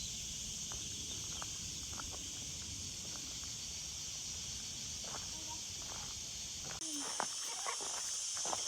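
Steady high-pitched chorus of insects in the trees, with a few faint footstep scuffs. A low rumble underneath cuts off suddenly about seven seconds in.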